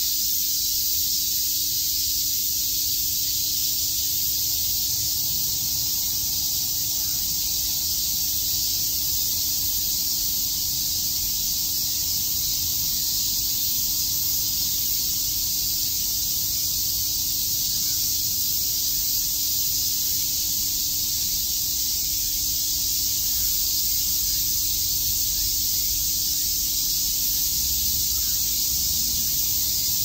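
A dense chorus of cicadas calling together, a steady high-pitched sizzling drone that never lets up.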